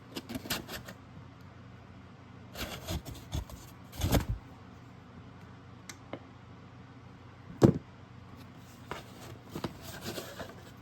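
Handling and opening product packaging with a knife: scattered knocks, scrapes and rustles in short irregular bunches, with one sharp knock about three-quarters of the way through.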